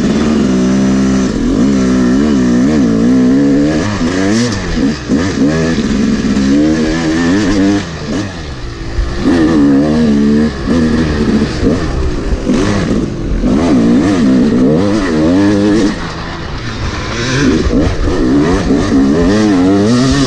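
Yamaha YZ250 two-stroke dirt bike engine, heard from on the bike, revving up and down again and again as the rider opens and closes the throttle along a woods trail, with brief lulls where the throttle is cut.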